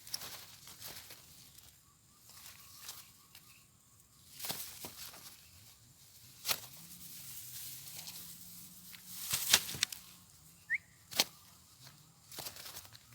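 Irregular rustling with sharp flaps and knocks, the loudest a few seconds apart: a netted spotted dove beating its wings while being handled.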